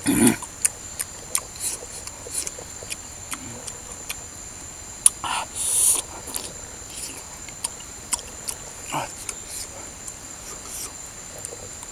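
Close-up mouth sounds of a man eating grilled coconut worms (palm weevil larvae): wet lip smacks and chewing clicks, with a short vocal 'ooh' at the start and a louder slurp or sucking breath about six seconds in.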